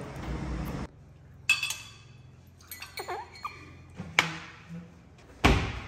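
Glassware and tableware clinking on a glass-topped table: a ringing clink about one and a half seconds in, a few light taps, then a sharp knock a little after four seconds as a drinking glass of water is set down. A louder noise starts near the end.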